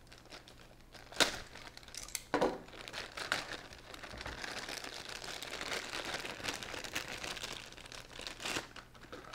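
Thin plastic bag crinkling as it is slit with a utility knife and a power adapter is pulled out of it. There are two sharp crackles in the first few seconds, then steady crinkling.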